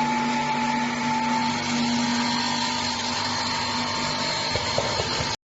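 MKS-PM100 peanut butter and sesame paste grinding machine running: a steady electric-motor hum and whine over a rushing noise. It stops abruptly near the end.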